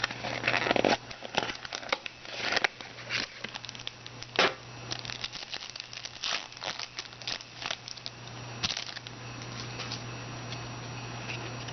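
Plastic trading-card pack wrapper crinkling and cards rustling as they are handled, in short irregular bursts that thin out after about eight seconds, over a steady low electrical hum.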